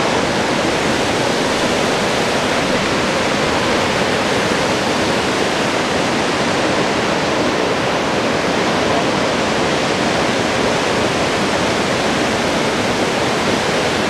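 Waterfall pouring into a rock plunge pool: a steady, loud rush of water.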